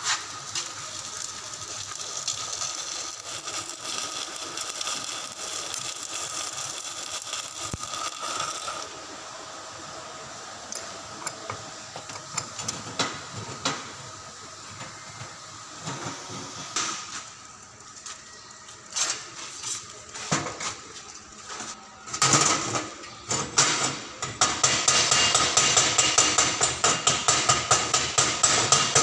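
Stick-welding arc on a steel pipe joint, crackling steadily for about the first nine seconds and then stopping. After a quieter stretch of scattered knocks, a chipping hammer taps rapidly on the weld near the end to knock off the slag.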